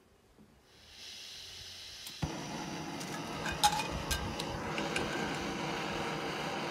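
Backpacking gas stove on an MSR IsoPro isobutane-propane canister: gas hisses from the opened valve, then the burner lights with a sudden whoosh about two seconds in and runs with a steady roar. A couple of sharp metallic clinks from the frying pan being handled over it.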